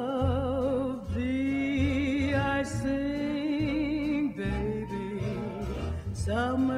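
A song: a singer holding long notes with vibrato over a steady bass line and instrumental backing.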